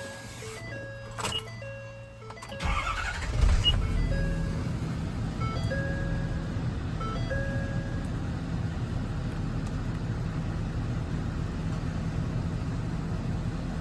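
The Ford F550's 6.7 Power Stroke diesel cranking and catching about two and a half seconds in, then idling steadily. Before and over the start, a repeating electronic warning chime plays short notes that stop near the middle.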